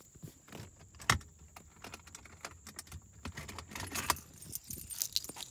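A set of car keys jangling and clicking as they are picked up and handled, with a sharp click about a second in and a run of quicker rattles around four to five seconds in.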